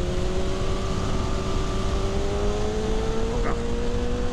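Motorcycle on the move: its drive note rises slowly and smoothly in pitch as it gains speed, over a rumble of wind and road noise.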